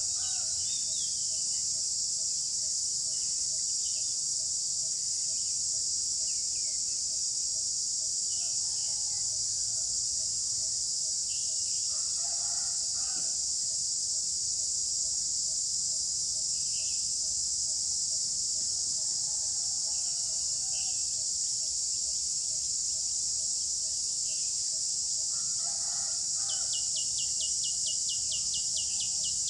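A steady, high-pitched insect chorus, with scattered bird calls and a few rooster crows over it every few seconds. Near the end, a rapid run of ticks joins in.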